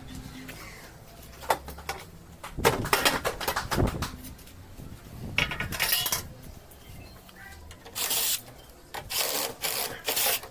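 Hand tools and small metal parts being handled during air conditioner repair work: scattered clicks, knocks and clattering, busiest around the middle. Several short rushing noises come in quick succession near the end.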